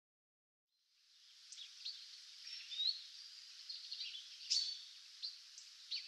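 Woodland birds chirping and calling over a faint steady hiss, fading in about a second in from silence. The calls are short and scattered, with one brief rising whistle near the middle.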